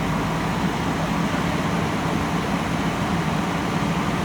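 Diesel engine of a JCB backhoe loader running steadily, a constant low hum with no sharp knocks or changes.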